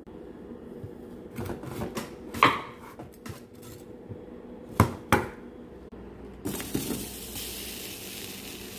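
Dishes and cutlery clinking and knocking, a handful of separate clinks. About six and a half seconds in, a steady hiss starts up.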